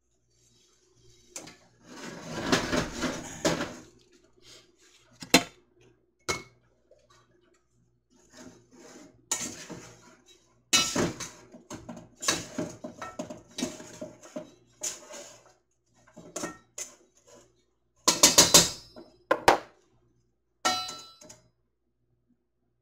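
A utensil scraping and clinking against dishes and jars as browned ground pork sausage is scooped into quart canning jars. The sounds come in irregular bursts, with a few sharp knocks.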